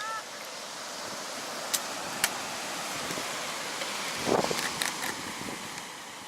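Seaside ambience: a steady rushing of surf and wind on the microphone, with a few sharp clicks and a short louder knock about four seconds in.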